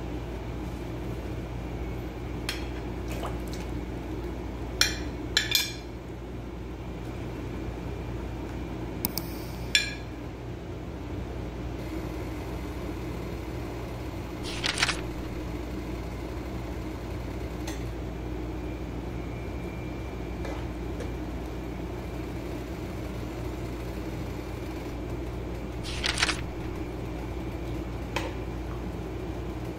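A metal spoon clinks and knocks against a pan of water as potato fingers are put in, salted and stirred: a few sharp clinks spaced well apart. A steady low hum runs underneath.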